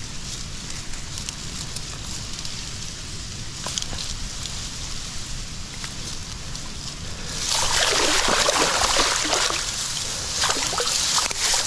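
Water splashing and sloshing in shallow water at the reedy edge: a loud burst of splashing starts about seven seconds in and a few shorter splashes follow near the end, over a steady low rumble of wind on the microphone.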